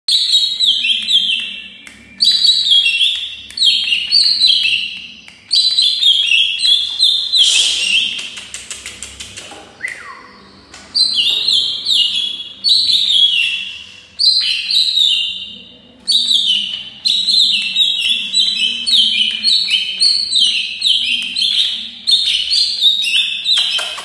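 Caged cucak ijo (green leafbird) singing hard and continuously: loud phrases of rapid, falling chattering notes, a new phrase every second or two. About a third of the way in the song breaks into a quick run of ticks and a short downward slur before the phrases resume.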